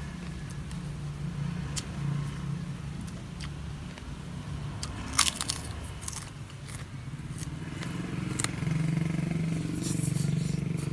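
Close chewing and crunching of a fried cracker (kerupuk) being eaten by hand, with a cluster of sharp crunches about five seconds in and more near the end, over a low steady hum.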